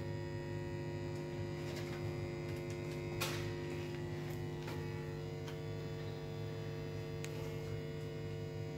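Steady electrical hum made of many even tones, with a few faint clicks and one sharper click about three seconds in.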